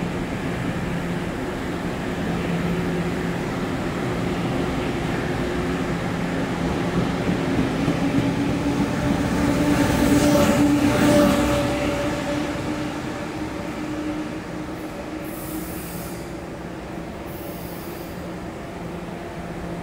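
Taiwan Railway Tze-Chiang express train pulling out of an underground station platform: a steady rail rumble with humming motor tones, loudest as the cars pass close about halfway through, then fading as the train moves away. Two brief high-pitched wheel squeals near the end.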